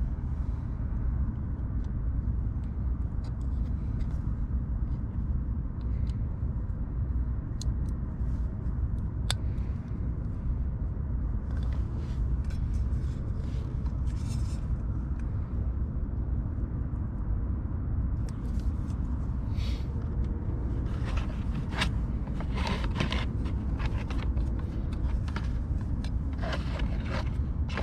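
Small clicks, rustles and scrapes of hands connecting wires to a new car door speaker, busier in the last third, over a steady low rumble.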